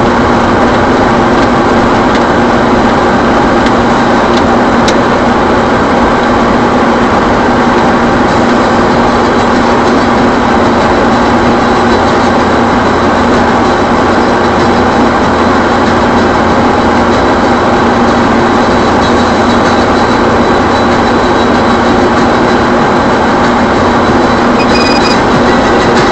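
Vehicle engine running steadily at a constant pitch, loud and unchanging throughout.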